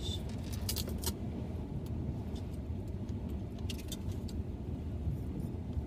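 Steady low rumble inside a car cabin, with scattered sharp clicks and light rattles from a plastic takeout container and wooden chopsticks being handled, a cluster of them in the first second.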